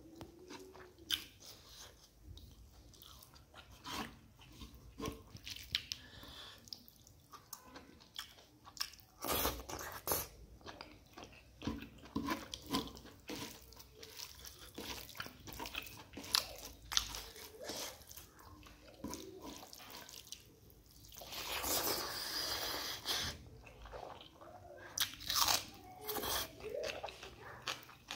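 Close-up eating sounds: chewing and crunching of mutton innards, rice and raw greens eaten by hand, with many short clicks and a stretch of louder rustling a little past two-thirds of the way through.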